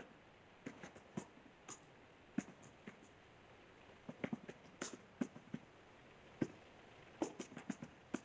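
Computer keyboard typing: faint, irregular keystroke clicks as a line of code is typed, with short pauses between bursts of keys.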